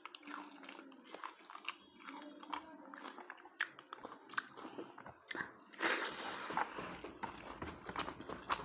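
Close-up eating sounds: wet chewing and biting with many small clicks and crunches, and a louder stretch of crunching about six seconds in.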